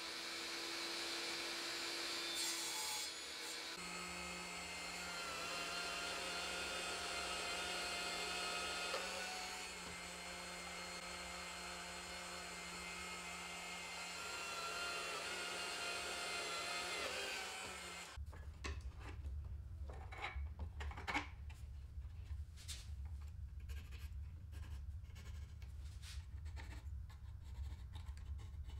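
A table saw running as it cuts a small strip of wood. From about four seconds in, a drill press motor runs steadily as it drills into a small wooden block. For the last ten seconds, scattered clicks and taps of hand work sound over a low hum.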